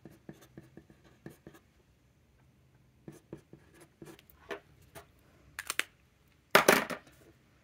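Broad-nib fountain pen writing on thin bank paper: soft, short scratches of the nib, stroke by stroke. Near the end come a couple of clicks and a louder short knock and rustle as the pen is set down.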